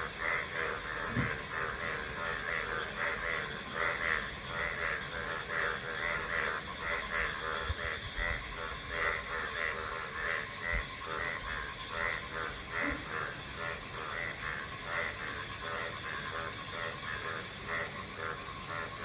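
Dense chorus of many animals calling at once: rapid, overlapping repeated calls with no pause.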